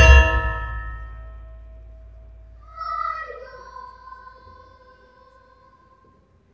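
Javanese gamelan closing a piece: a last stroke on the large hanging gong and bronze metallophones, the gong's deep hum and the keys' ringing dying away over about five seconds. A faint sung note comes in about three seconds in and fades.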